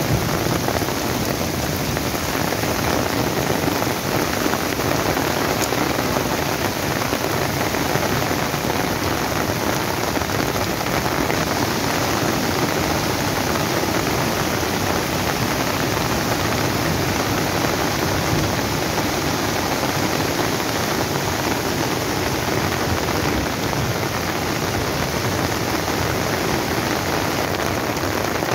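Heavy rain falling steadily, together with the rush of a swollen, muddy mountain stream in flood pouring over rocks.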